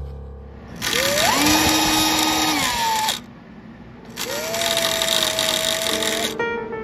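A small handheld power tool run twice, about two seconds each time: the motor whine climbs as it spins up, holds steady while it works, and drops as it is released.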